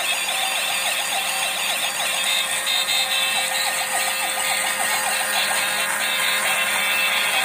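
Electronic sound effects from a battery-powered toy pickup truck with a flashing roof light: quick warbling, chirping tones over a steady whine, with music mixed in.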